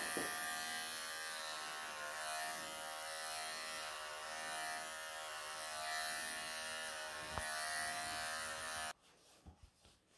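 Electric pet clippers buzzing steadily as they shave matted fur off a Persian cat's belly in a lion clip, with one brief click partway through. The buzz cuts off suddenly about nine seconds in.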